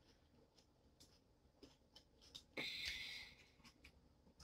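Faint clicks of mussel and clam shells against each other and the foil pan as seafood is picked through by hand, with a brief scraping rustle about two and a half seconds in.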